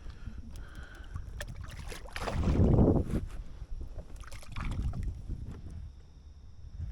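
Wind buffeting the microphone on a small boat on open water, a steady low rumble with a louder gust a little after two seconds in and a weaker one near five seconds.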